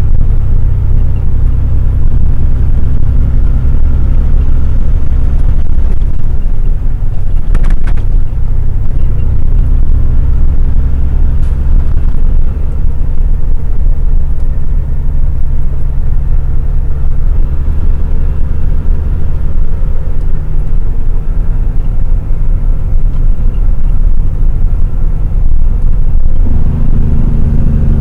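Logging truck's diesel engine running steadily under way, a heavy low rumble, with a brief sharp rattle about a quarter of the way in and the engine note changing near the end.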